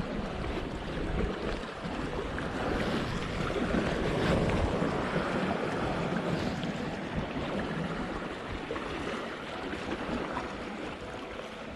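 Sea waves washing against the rocks in a steady rush that swells to its loudest about a third of the way in, then eases, with wind buffeting the microphone.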